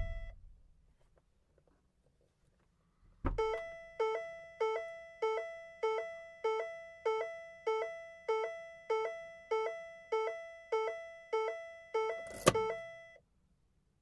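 A car's warning chime: a short two-note beep, a low note rising to a higher one, repeating about every 0.6 s. It starts with a thunk about three seconds in, and a louder thunk comes near the end, just before the chime stops.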